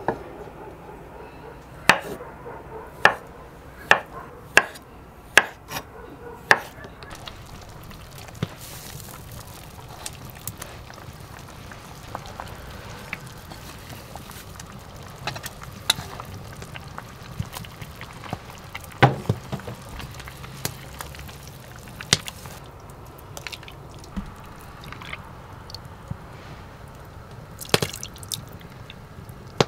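Kitchen work sounds: six sharp knocks about a second apart, then scattered lighter clicks with small liquid sounds of dripping and pouring.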